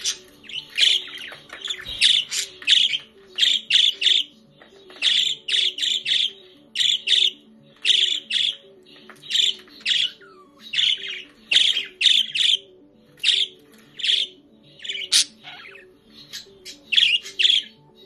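Budgerigars chirping and squawking in quick short calls, a couple of clusters a second, over soft background music with steady low notes.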